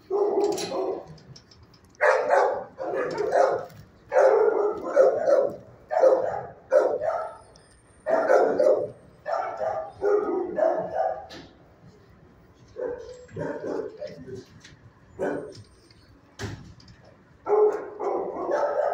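Shelter dogs barking in the kennels: repeated bursts of several barks at a time with short pauses. The barking turns sparser and fainter for a few seconds past the middle and picks up again near the end.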